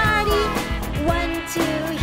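Upbeat cartoon background music with a steady beat, with a falling pitch glide at the start.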